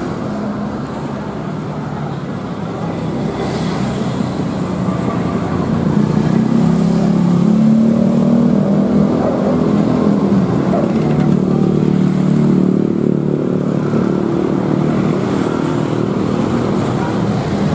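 Motor vehicle engine running, growing louder over the first several seconds and then holding steady.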